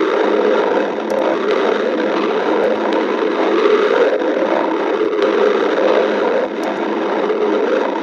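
Stomach growling: a continuous, irregular rumbling gurgle with a few faint clicks.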